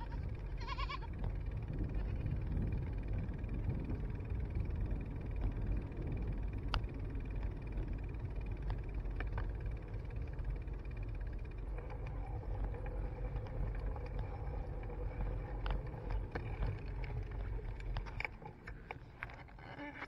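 A goat bleating once, briefly, about a second in, over the steady low rumble of wind and tyres from a moving mountain bike. There are a few sharp clicks, and the rumble falls away near the end as the bike slows.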